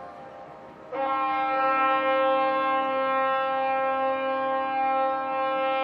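A ship's horn sounds one long, steady blast that starts suddenly about a second in. It follows the fading tail of an earlier blast and is given as a greeting salute to the crowd on shore.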